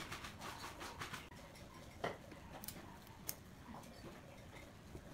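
Faint scratching strokes of a marking tool drawn along a pine board against a square, with a few light knocks on the workbench about two and three seconds in.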